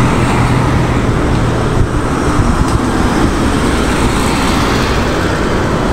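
Steady road traffic noise from passing vehicles, with an engine hum in the first couple of seconds.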